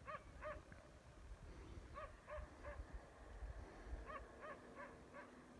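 Faint, distant dog barking: short barks in quick runs of two to four, with brief pauses between runs.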